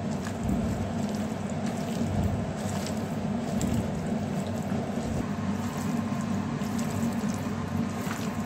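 A hand squelching and squishing through katla fish pieces coated in mustard paste, mustard oil and sliced onions in a steel bowl: wet mixing with small clicks, over a steady low hum.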